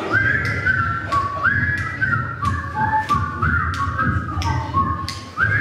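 A whistled melody of short held notes, with a tap keeping a steady beat about twice a second.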